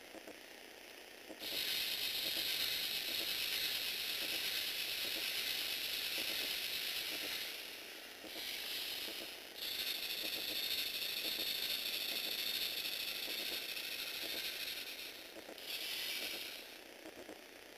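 LEGO Mindstorms NXT servo motors driving a Technic tread-link conveyor: a steady high whir of motors and gears over a rapid clicking rattle of the links. It starts about a second and a half in, stops and restarts three times, and dies away near the end.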